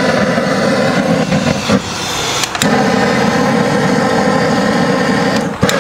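An engine idling steadily at an even pitch, dipping briefly about two seconds in, with a couple of sharp clicks.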